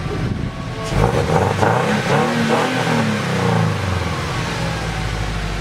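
Scion FR-S's flat-four boxer engine with Tomei unequal-length headers and the stock exhaust, idling, then revved once about a second in, the pitch rising and falling back to idle by about four seconds.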